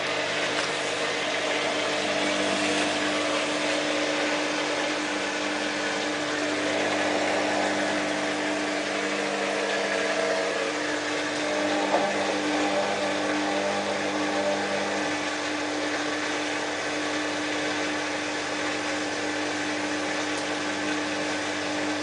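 Whirlpool AWM4066 washing machine running on its cottons programme: a steady motor or pump hum under a broad rushing noise, with a single short click about midway.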